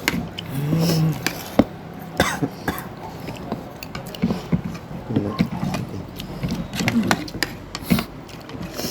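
Eating sounds at a shared meal of biryani: spoons clicking on plates many times, with short vocal sounds and coughing among the diners.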